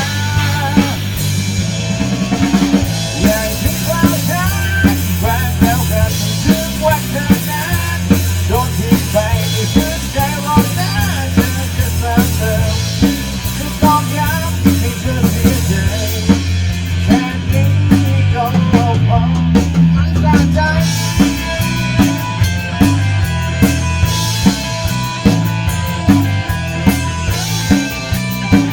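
Rock band playing an instrumental passage: drum kit with bass drum and snare keeping a steady beat under a strong bass line and melodic instrument lines.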